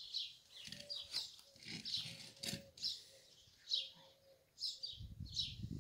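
A small bird chirping over and over, short high chirps that sweep downward, about one or two a second. There is a low rustle near the end.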